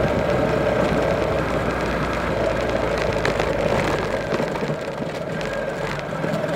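Single-cylinder 125 cc commuter motorcycle engine running steadily at cruising speed, heard from the rider's seat over wind and road rumble, easing slightly a little before the end.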